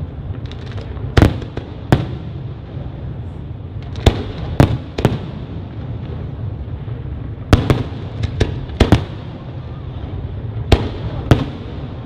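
Fireworks display: aerial shells bursting with about a dozen sharp, irregularly spaced bangs, several in quick clusters, over a continuous background rumble.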